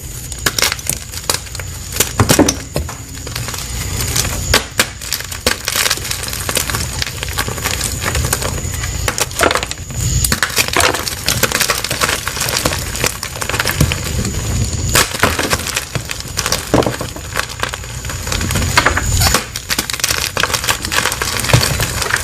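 Crunchy blocks of plain white gym chalk being crushed, with dense crackling and snapping throughout and a sharper crack every few seconds.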